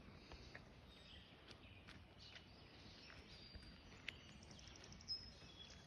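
Faint bird chirps and calls over quiet rural outdoor background, with a quick trill about four and a half seconds in and a short, louder high call just after it.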